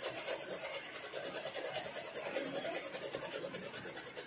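Fast, even back-and-forth scrubbing of a freshly reballed mobile-phone IC as it is cleaned, several strokes a second.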